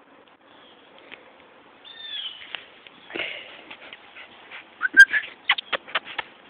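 A small dog whining in high, wavering cries, then letting out a quick run of short, sharp yaps in the last two seconds. A single sharp knock sounds among the first yaps.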